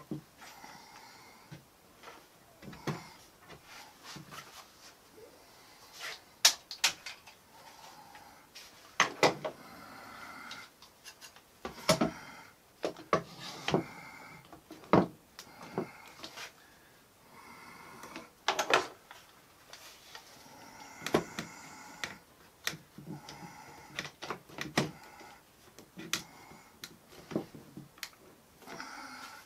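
One-hand bar clamps and wooden pieces handled on a workbench while a frame is clamped up: scattered sharp clicks and knocks, some in quick clusters, as the clamps are set and tightened.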